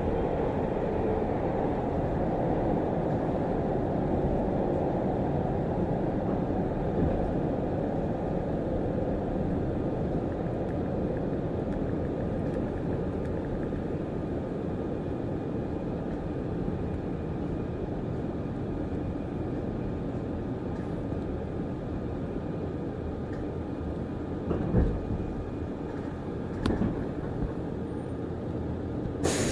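Interior running sound of a field-chopper-controlled Keio 6000 series electric train, heard inside a driving trailer car: a steady rumble of wheels on rail that slowly grows quieter. Two short knocks come near the end.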